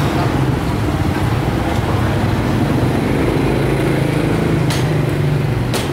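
A motor vehicle engine running steadily close by, a low even hum, with a couple of sharp clicks near the end.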